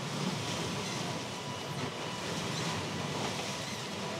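Steady rushing noise of wind and water aboard a sailing catamaran under way in rough seas, with no distinct events.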